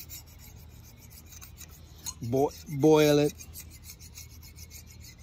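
Razor blade held in locking pliers scraping old head gasket material off the cast-iron cylinder head of a Mitsubishi Satoh S370 tractor, in quick, short rasping strokes of about five a second.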